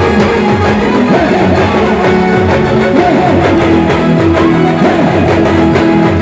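Loud instrumental band music: a bending, wavering melodic lead over strummed guitar and a steady beat.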